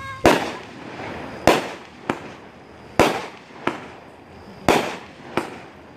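Fireworks going off: about seven sharp bangs, roughly one every second, each followed by a short echoing tail.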